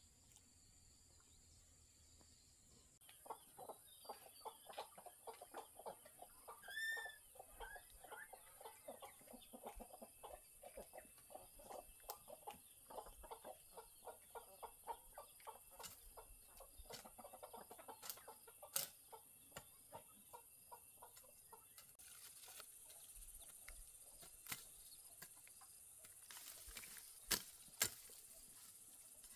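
Chickens clucking in a quick run of short calls, with one higher, clearer call about seven seconds in. Under it runs a steady high-pitched hum, and a few sharp clicks come near the end.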